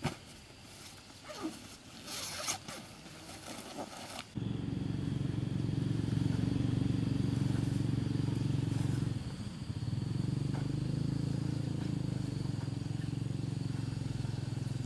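A zipper and nylon rustling, with short scrapes and clicks as the tent bag is opened. About four seconds in, a much louder steady low hum starts abruptly and drowns them out, dipping briefly near the middle.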